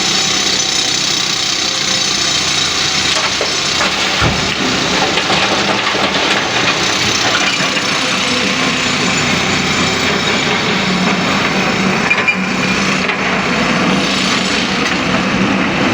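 LiuGong excavator's engine running under load while it loads stone, with rocks grinding and clattering and a sharp knock about four seconds in and again about twelve seconds in.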